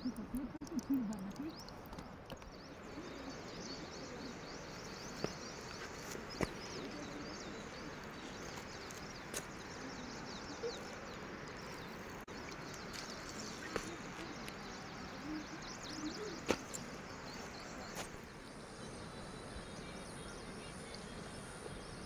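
Faint, steady rush of a small stream running over rocks, with many quick, high bird chirps through most of it and a few sharp clicks.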